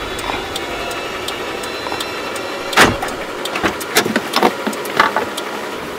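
Inside a car: a low engine rumble that fades away early on, a sharp clunk about three seconds in, then a run of small clicks and knocks as someone moves about in the cabin.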